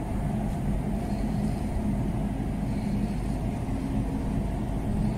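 Steady low engine drone with a constant hum, like a large engine or generator idling.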